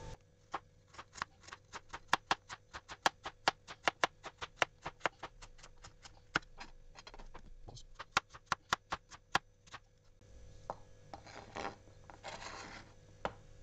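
Kitchen knife slicing carrots into rounds on a cutting board: a quick, even run of sharp taps, about four a second, as the blade hits the board. Near the end come a few softer, longer strokes as a potato is sliced.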